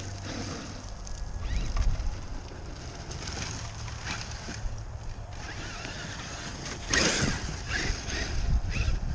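Traxxas X-Maxx electric RC monster truck driving over dirt and grass, its motor and tyres heard against a low, rumbling noise on the microphone. There is a louder sudden burst about seven seconds in.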